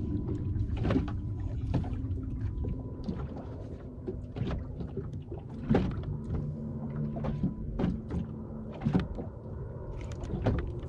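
Wind and water noise on a small drifting fishing boat, with scattered light knocks and clicks of tackle and hull. There is a faint steady hum through the first part.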